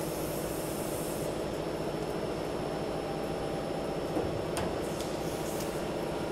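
Gear-driven roll forming machine running steadily as its rollers draw a sheet-metal sound-barrier box panel through to clamp the edges. A couple of brief metallic clicks come a little past halfway.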